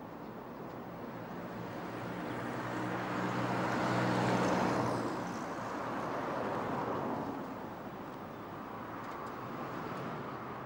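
A motor vehicle passing by, its engine and road noise swelling to a peak about halfway through and then fading away.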